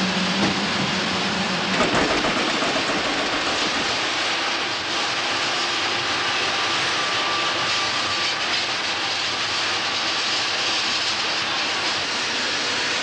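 Paris métro Sprague-Thomson train running at speed, a steady rolling noise, with a faint whine partway through.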